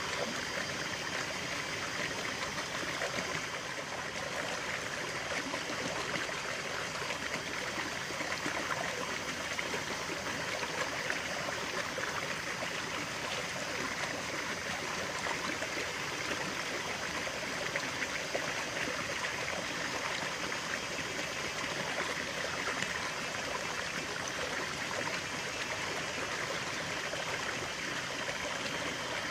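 Stream water running and trickling steadily, an even, unbroken babble.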